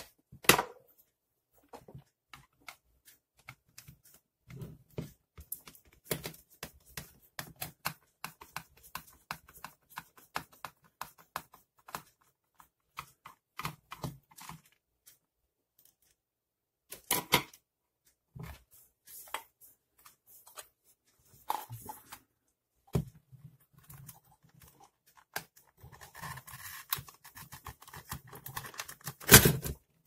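Plastic housing of a Masterline SH-P1 hair dryer clicking and knocking as it is handled and turned over, with a denser stretch of plastic scraping and crackling near the end and one loud snap just before the end as the casing is prised apart.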